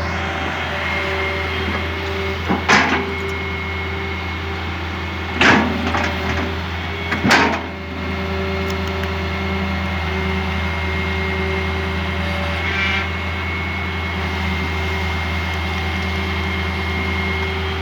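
John Deere 595D excavator's diesel engine running steadily, with three sharp knocks about three, five and a half, and seven seconds in, as the machine works.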